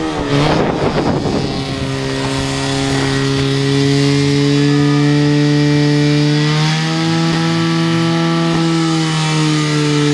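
A portable fire pump's engine running at high revs with a steady buzzing note. The pitch wavers slightly in the second half and drops near the end. There is a brief rushing noise in the first second or so.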